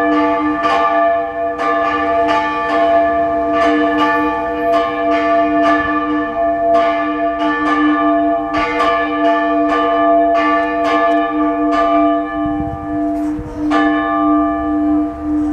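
Orthodox church bells ringing: a deep bell hums steadily beneath a quick, uneven run of strokes from smaller bells. The strokes stop about twelve seconds in, with one more near the end, while the deep bell keeps sounding.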